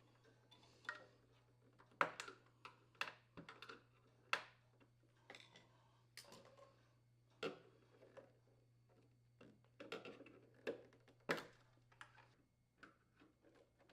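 Scattered sharp clicks and light plastic knocks as the plastic wire retainers are unclipped from a refrigerator's rear frame and the power cord is worked free.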